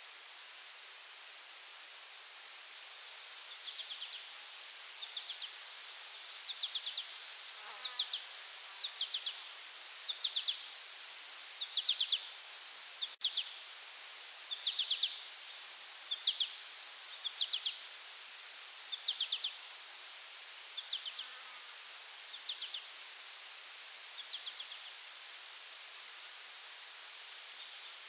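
Insects calling: a steady high-pitched drone with a faint rapid pulsing over it, and a chirping insect giving short clusters of chirps about every second and a half, louder in the middle and fading toward the end. A single brief click about halfway through.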